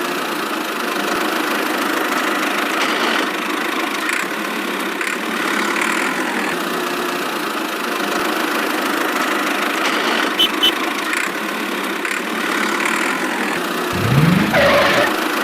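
A small motor of a miniature DIY tractor machine running steadily. A short rising sound comes near the end.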